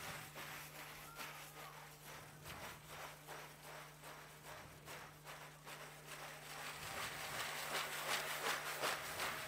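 Large frame drum played in a steady rhythm of light strokes, growing louder toward the end, over a low steady hum.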